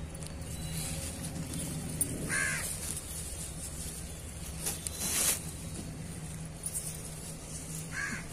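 A crow cawing twice, single caws several seconds apart, over a steady low hum. A brief rustle comes about halfway through, the loudest moment.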